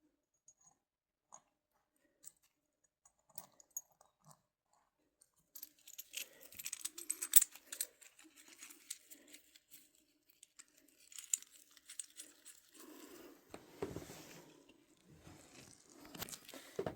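Hands handling small hard parts and something crinkly. Scattered light clicks for about five seconds, then stretches of dense crinkling and rattling, with a few duller knocks in the last few seconds.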